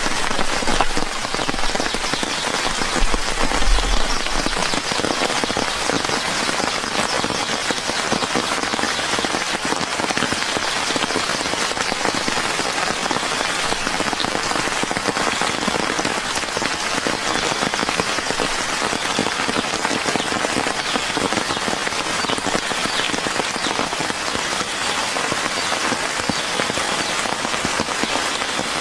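Steady rain falling, a dense even hiss of drops, with a brief low rumble about three to four seconds in.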